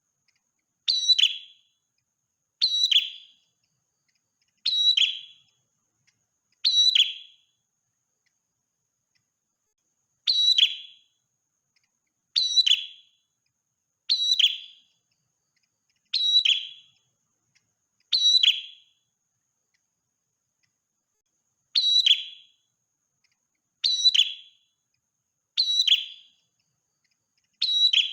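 Prenjak merah, a small Indonesian warbler-type songbird, calling repeatedly. It gives a short, sharp high note that drops quickly in pitch, about once every two seconds, with two longer pauses.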